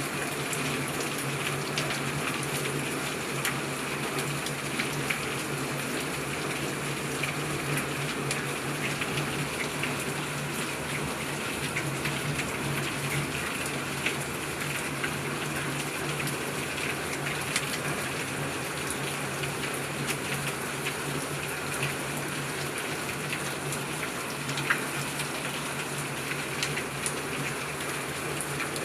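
Steady rain falling, a continuous rush of water with many scattered drop hits throughout.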